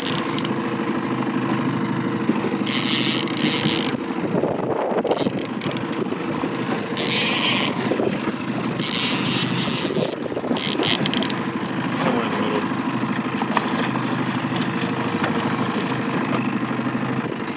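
Fishing boat's engine running with a steady hum, with a few short bursts of rushing hiss over it.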